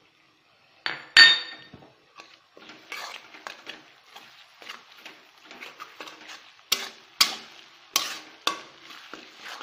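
Two ringing metal clanks against a wok about a second in. Then a metal spatula stirs and scrapes a spice paste and onions frying in hot oil, with a light sizzle and sharp clinks of the spatula on the pan in the second half.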